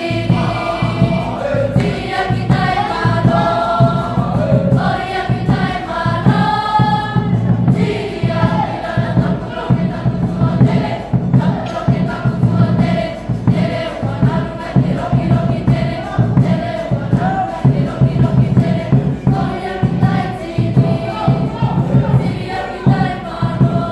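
A large group singing a Cook Islands Māori song in chorus, with ukuleles strummed to a steady beat.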